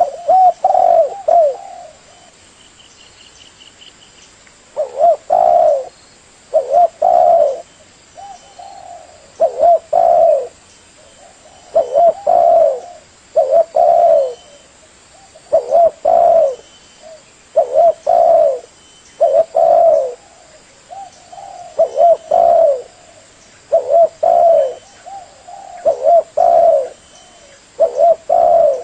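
Spotted dove (tekukur) cooing: a short phrase of two or three low notes, repeated about every two seconds, with a pause of about three seconds after the first phrase.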